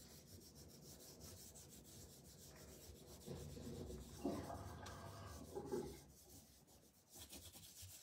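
Faint, soft rubbing of a baby wipe over embossed cardstock, blending green ink into the paper, somewhat louder between about three and six seconds in.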